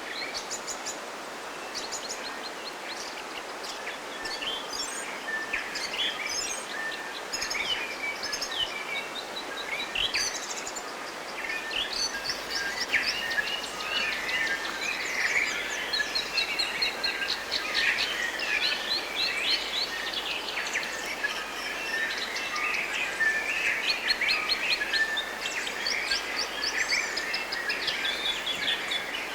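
Many wild birds chirping and singing at once, their calls overlapping in quick repeated notes and trills. The chorus gets busier about halfway through, over a steady background hiss.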